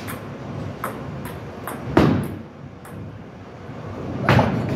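Bowling balls in a bowling alley: a ball lands on the lane with a sharp thud about two seconds in and rolls with a low rumble, then a longer crash of impacts near the end as balls and pins collide.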